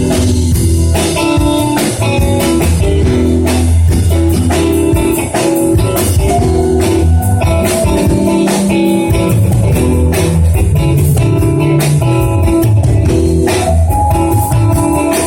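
Band music with no singing: guitar over bass and a drum kit, played at a steady beat.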